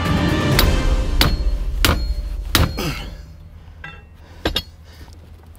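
Hammer blows on the steering column of a keyless 2002 Subaru WRX, knocking the ignition lock tumbler off the steering shaft to free the locked steering: four sharp strikes about two thirds of a second apart, then one more after a pause. Background music under the first strikes fades out about halfway through.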